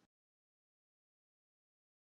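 Digital silence: the audio is muted between phrases of speech.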